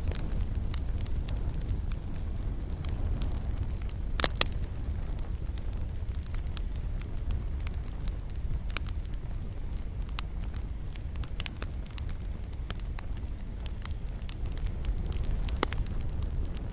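Wood fire in a fireplace crackling, with a steady low rumble of the flames and irregular sharp pops, the loudest about four seconds in.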